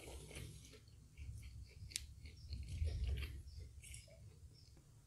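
Close-miked chewing of a mouthful of KFC fried chicken nugget, with irregular soft mouth sounds and small clicks.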